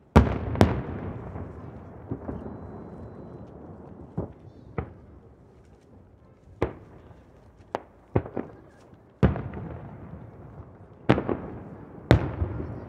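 Aerial firework shells bursting one after another, about a dozen sharp booms at uneven intervals, each trailing off in a long rolling echo from the hills around the bay.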